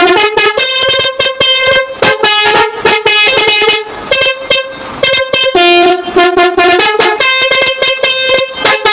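Basuri multi-trumpet truck air horn playing its tune as a fast run of short toots on changing notes. One trumpet is broken, so the melody comes out 'pincang' (limping), with one of its notes missing.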